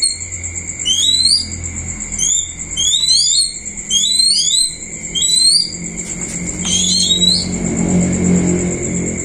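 Short, high, rising chirp calls from a bird, repeated in clusters of two or three about once a second, over a steady shrill pulsing trill and a low hum.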